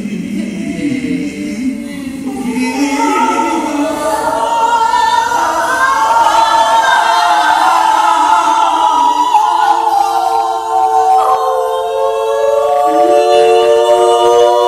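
Women's voices singing wordless, improvised a cappella vocals. They begin low with wavering, sliding tones, grow louder as they climb into higher lines, and near the end settle into long held notes sung in harmony.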